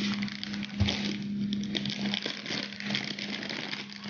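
Plastic bag of brown sugar rustling and crinkling as it is handled, over a steady low hum.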